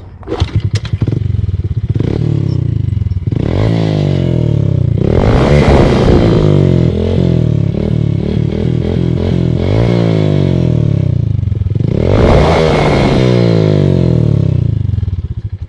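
Honda Biz motorcycle's single-cylinder engine with an aftermarket Roncar aluminium sport exhaust, idling and being revved several times, with a run of quick throttle blips in the middle. It cuts off near the end.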